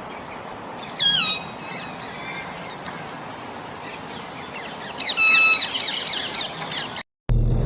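Harsh, squawking bird calls over outdoor background noise. There is one loud falling call about a second in and a quick cluster of calls around five seconds in.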